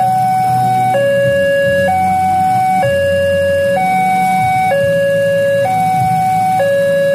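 Railway level-crossing warning alarm sounding from the loudspeaker on the crossing signal: an electronic two-tone, switching between a high and a low note about once a second, over a low traffic rumble.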